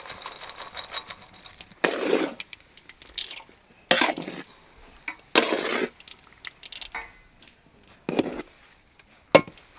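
Fried peanuts and coconut pieces pattering into a large metal kadai of thick spiced potato filling. A spatula then scrapes and turns the mash against the pan in about five separate strokes.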